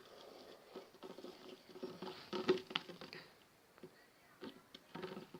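Slime being handled by hand: soft, irregular sticky clicks and squelches, with a louder cluster about two and a half seconds in and only a few scattered clicks later on.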